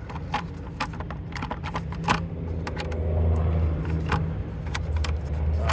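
2010 Hyundai Elantra's 2.0-litre four-cylinder engine idling with a steady low hum and scattered irregular clicks, louder about halfway through. The engine is misfiring on cylinders 1 and 3.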